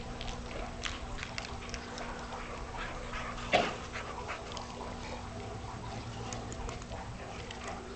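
Cane Corso puppies playing on grass: scattered scuffs and thuds of paws, with one short, loud dog cry about three and a half seconds in.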